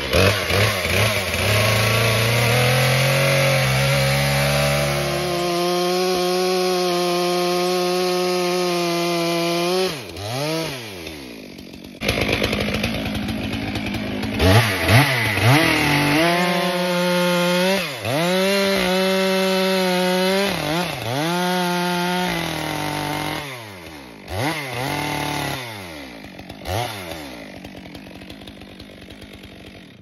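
Stihl two-stroke chainsaw crosscutting the ends off an alder log: the engine holds high, steady revs in the cut, and the throttle is let off several times, its pitch sweeping down and back up. It runs lower and quieter near the end.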